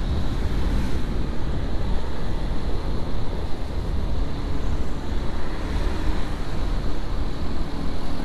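Wind buffeting the microphone of a moving motorcycle, a steady low rumble with the bike's engine and road noise underneath.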